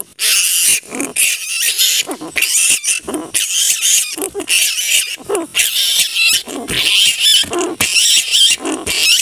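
Large flying foxes (kalong) screeching and squabbling: many harsh, shrill calls overlapping and breaking off every fraction of a second, with a few lower wavering notes among them.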